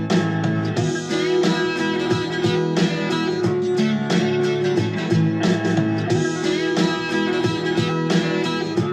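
Background music: plucked and strummed guitar over a steady bass line.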